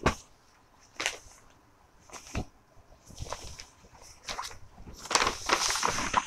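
Silk saree fabric swishing in a few short strokes as it is unfolded and flicked open. Near the end comes a louder, longer crinkling of stiff brown kraft wrapping paper being lifted and moved.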